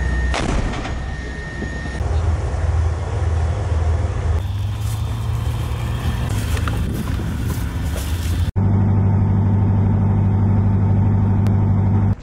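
Low rumble of heavy military vehicles with scattered clicks. About eight and a half seconds in it cuts abruptly to a louder, steady low engine drone from a tracked armoured vehicle.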